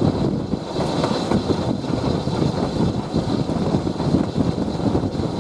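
Steam-hauled train running along the line behind BR Standard Class 4 2-6-4T tank locomotive no. 80151, heard from an open carriage window: a steady rumble of wheels on the rails with irregular small knocks.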